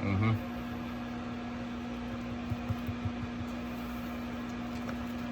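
Microwave oven running with a steady hum, and a few faint soft knocks about halfway through.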